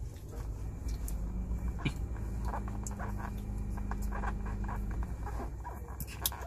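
Plastic packaging crinkling and clicking as a takeaway drink cup and its tight lid are handled, over a steady low hum in the car cabin.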